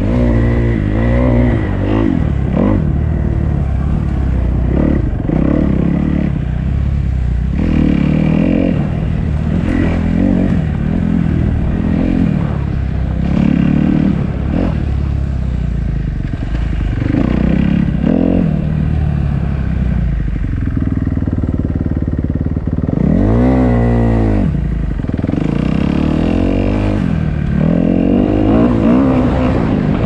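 Dirt bike engine on a trail ride, its pitch rising and falling again and again as the throttle is opened and closed, with one deep drop and climb in revs about three quarters of the way through.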